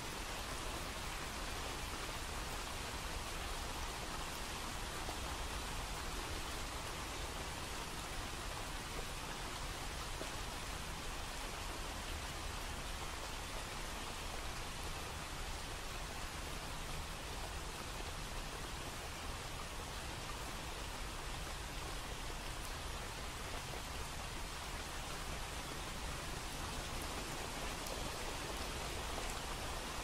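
Steady rushing water noise: an even hiss that does not swell or break over the whole stretch.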